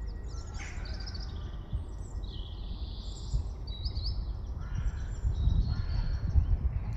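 Birds calling outdoors: a string of high chirps and harsh, crow-like calls, over a steady low rumble.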